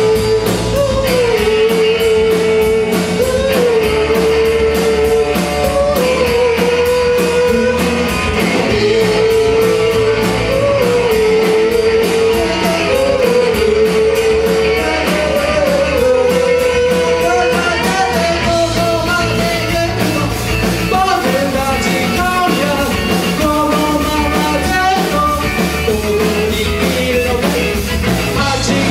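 Live rock band playing: singing over electric guitars, bass and a steady drum beat.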